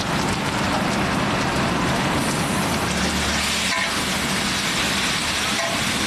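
Sliced vegetables frying on a large flat iron tawa, with a steady sizzle over a low rumble, as tomatoes go onto the hot plate and a metal spatula stirs through them. There is a sharp scrape or knock about four seconds in.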